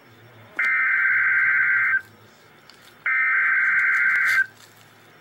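Emergency Alert System SAME header data bursts: two loud, buzzy digital screeches, each about a second and a half long and about a second apart, encoding the severe thunderstorm warning's event and county codes.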